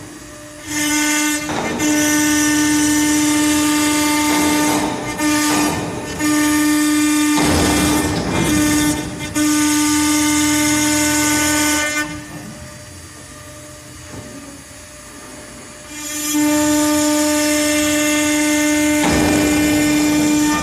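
CNC router spindle carving letters into a wooden board: a steady high whine with the hiss of the bit cutting. It breaks off briefly several times, goes quieter for a few seconds past the middle, then comes back loud near the end.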